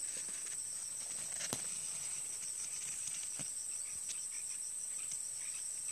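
Insects trilling steadily in one continuous high-pitched note, with a few faint clicks over it, the sharpest about a second and a half in.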